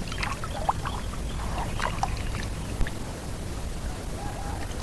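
Small splashes and trickles of water, scattered light ticks over a steady low rumble.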